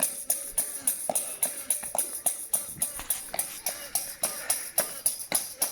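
Jingling hand percussion, like a tambourine, struck in a steady rhythm of about three or four beats a second.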